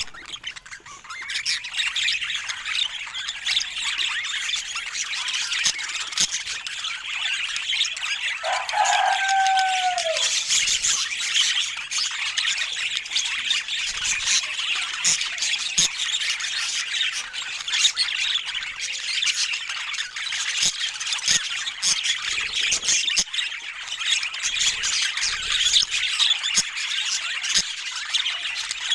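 A group of budgerigars chattering, warbling and squawking steadily, a dense run of quick high calls. One lower, longer sliding call comes about nine seconds in.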